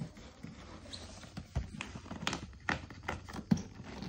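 Irregular light taps and knocks as a cardboard box is handled and opened on a tile floor, with the sharpest knock near the end.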